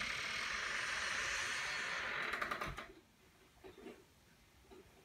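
Steady outdoor hiss coming in through an open glass French door, cut off about two and a half seconds in as the door swings shut with a quick creak of dry hinges in need of lubrication and a latch click.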